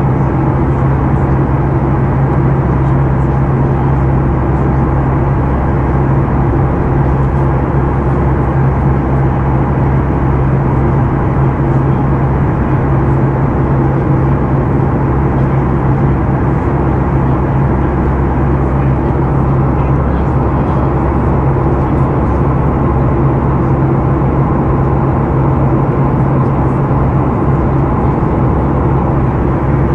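Steady cabin drone of a Boeing 737 MAX 8 in flight, heard inside the cabin beside the wing: the CFM LEAP-1B engines' hum, a few steady low tones, over rushing airflow.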